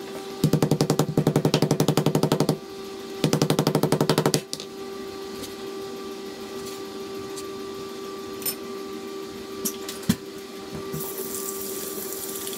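Meat tenderizer mallet pounding deer backstrap flat on a plastic cutting board: a run of rapid blows lasting about two seconds, then after a short pause another run of about a second. A steady hum and a few light knocks follow.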